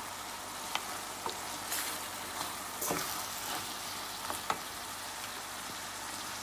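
Shrimp and chopped vegetables sizzling in oil in a stainless steel pan, a steady hiss, with a handful of short scrapes and knocks from a wooden spoon stirring them.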